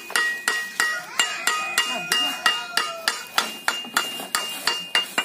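Hand hammer striking a brass boat-propeller blade held on a wooden block, at about three to four blows a second. Each blow rings briefly like metal. This is the blade being beaten to set its shape and pitch for a racing boat.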